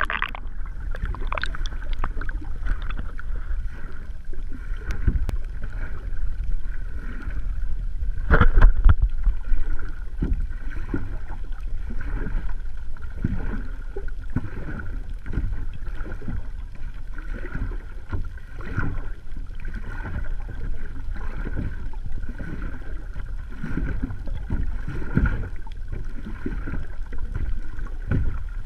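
Muffled underwater ambience: a steady low rumble of moving water with irregular clicks and swishes, louder for a moment about eight seconds in.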